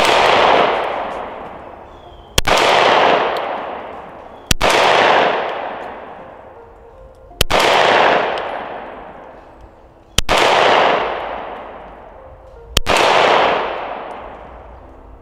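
Gen 5 Glock 17 9mm pistol fired six times in slow, aimed succession, about two to three seconds apart, each sharp report followed by a long echo that fades away over about two seconds.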